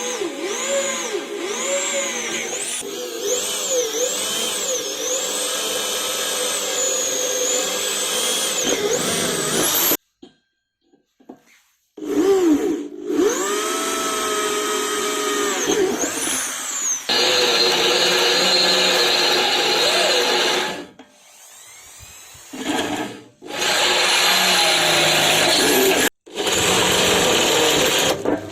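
Electric drill running under a changing load, its motor pitch repeatedly dipping and recovering. It stops abruptly about ten seconds in, starts again a couple of seconds later, and drops out twice more near the end.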